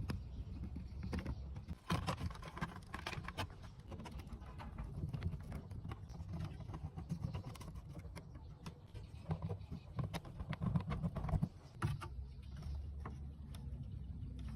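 Irregular light clicks and taps, with a steady low hum underneath.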